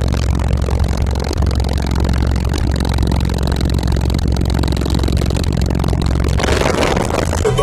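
Orion HCCA subwoofers in a car playing loud, deep bass that holds steady, with more mid-range sound coming in near the end.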